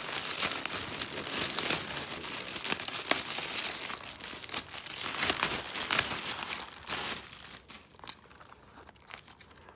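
Clear plastic packaging bag crinkling and crackling as hands pull a transparent chest bag out of it, dense with sharp crackles. The crinkling thins out and quietens about three quarters of the way through.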